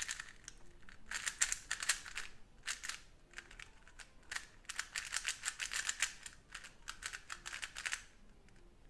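GAN 356 Air UM magnetic 3x3 speedcube being turned quickly by hand: runs of rapid plastic clicks as the layers turn, in bursts with short pauses between, the longest run from about four to eight seconds in.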